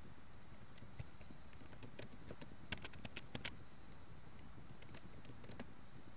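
Computer keyboard typing: a few scattered keystrokes and a quick run of about half a dozen key clicks near the middle, over a faint steady hum.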